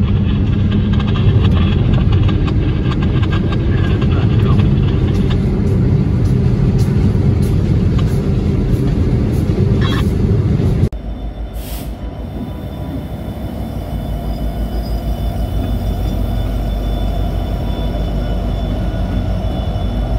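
Diesel freight locomotives running close by: a loud, steady low rumble that cuts off suddenly about eleven seconds in. It gives way to a quieter Canadian Pacific diesel locomotive with a pulsing low throb and a steady high whine, growing slowly louder.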